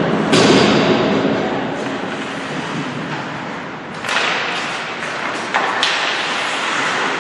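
Ice hockey play on a rink: a continuous scraping noise of skates on the ice, broken by three sharp knocks of stick, puck or boards, about a third of a second in, at about four seconds and again near six seconds.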